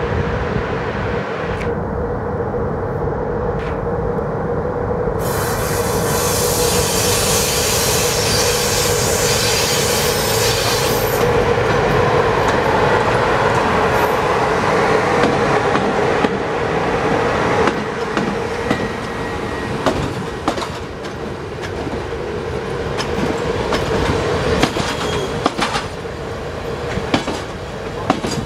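Class 060-EA1 electric locomotive pulling a passenger train away at low speed, running past with a steady hum. The coaches then roll by, their wheels clicking over the rail joints from about halfway through.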